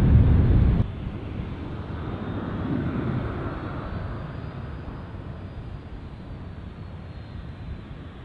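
A loud jet rumble mixed with wind on the microphone cuts off abruptly about a second in. It gives way to the steadier, quieter running of a Boeing 737-800's CFM56-7 engines on the ground, with a faint high whine that slowly rises and falls.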